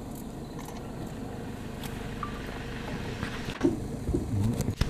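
Tour vehicle's engine idling with a steady low rumble, with a couple of sharp knocks near the end.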